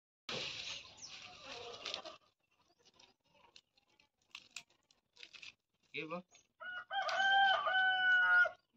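A rooster crows once near the end, a drawn-out call of about a second and a half in a few held steps, the loudest sound here. Before it, about two seconds of dry rustling and crackling, then scattered light clicks, as dry garlic heads are broken apart by hand.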